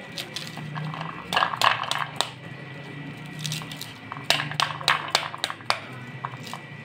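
Pomegranate being broken open and its seeds worked loose with a knife, with quick clusters of sharp clicks and taps as seeds and rind knock against a ceramic plate, the first about a second and a half in and the second about four seconds in. A low steady hum runs underneath.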